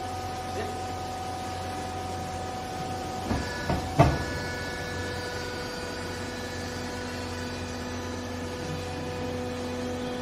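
Vertical hydraulic baler running, its electric pump motor giving a steady hum and whine as the ram presses down on a load of used clothes. A few sharp knocks come about three to four seconds in, and after them the whine settles to a lower pitch.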